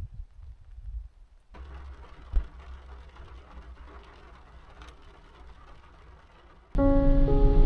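Low rumbling, then a steady hiss with one sharp knock about two seconds in; loud background music with held, piano-like notes comes in near the end.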